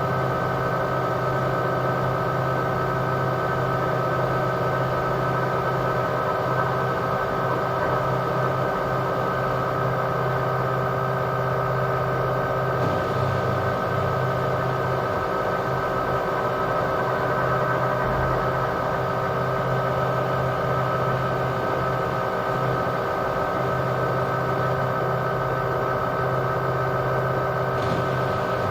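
LG washing machine on its spin cycle, drum spinning at a constant speed with a steady hum and motor whine.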